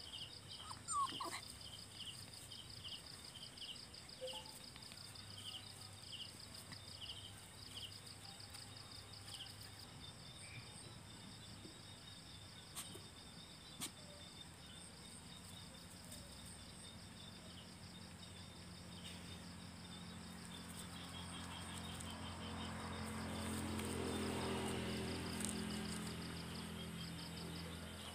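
Night insects trilling and chirping steadily, with a quick rhythmic chirp in the first part. In the second half a low droning hum swells and then fades, with a few faint clicks along the way.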